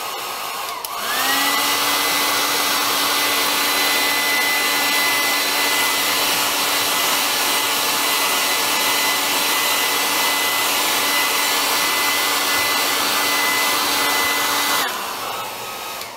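Hand-held hair dryer blowing, its motor whine stepping up to a louder, higher setting about a second in and holding steady. Near the end it drops away and the whine winds down.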